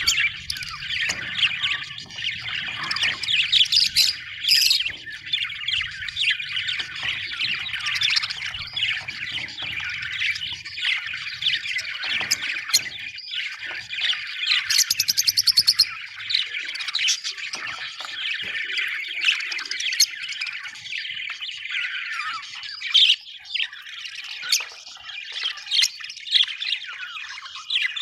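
A group of budgerigars chattering and chirping continuously in a dense, warbling flock chorus, with a quick run of sharp ticks about halfway through.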